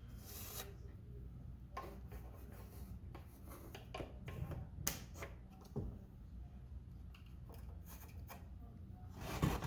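Handling noises as a wall-mount bracket is held against the wall and its holes are marked: scattered light rubs and small knocks, with a louder knock near the end.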